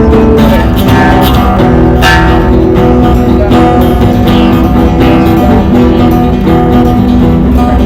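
Instrumental music led by strummed acoustic guitar, steady and loud.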